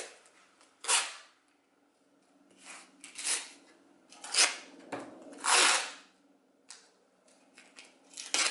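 Masking tape ripped off the roll in a series of short pulls, the longest a little past halfway, as strips are laid on a wooden board.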